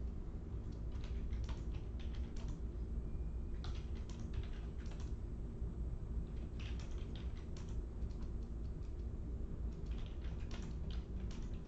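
Typing on a computer keyboard in several short bursts of keystrokes, with pauses between them, over a steady low hum.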